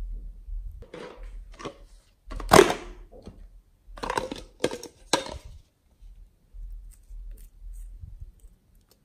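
Close-up handling of small plastic slime containers: a string of short scraping and knocking noises, the loudest about two and a half seconds in, fading to faint handling noise after about five seconds.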